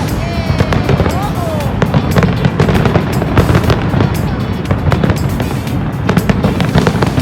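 Fireworks display going off in many rapid bangs and crackles over a steady low rumble, with music playing and crowd voices mixed in. A few gliding whistle-like tones sound in the first two seconds.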